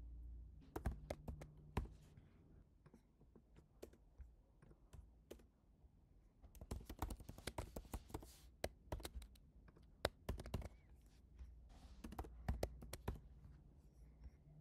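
Typing on a computer keyboard: quiet key clicks in irregular bursts with short pauses between them.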